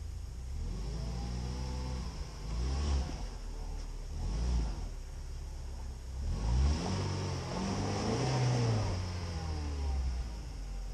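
UAZ Patriot engine revving in about three surges, each rising and falling, as the SUV strains to drive out of a deep mud rut.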